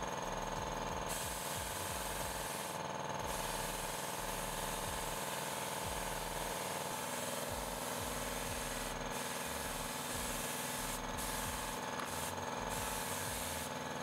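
Compressed-air paint spray gun hissing as it sprays epoxy primer, the hiss dropping out briefly several times as the trigger is let go, over an air compressor running steadily.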